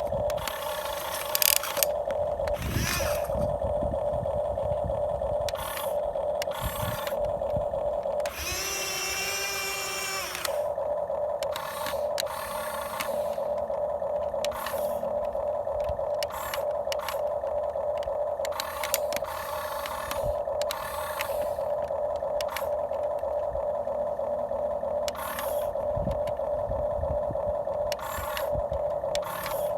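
Electric motors of a radio-controlled model excavator whining steadily, with short rasping bursts every second or two as it works. About a third of the way in, a higher, louder whine runs for roughly two seconds.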